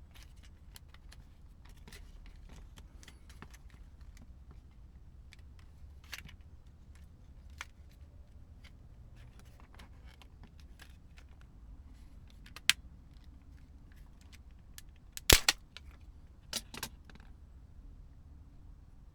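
Small plastic clicks and taps from a Blu-ray remote control being handled and worked on, with a sharp snap about two-thirds of the way in, a loud cluster of snaps a few seconds later, and a couple more just after.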